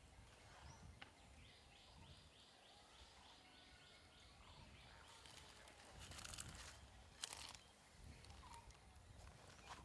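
Near silence: faint outdoor ambience, with a high chirping call repeated about four times a second for a few seconds and a couple of brief rustles near the middle.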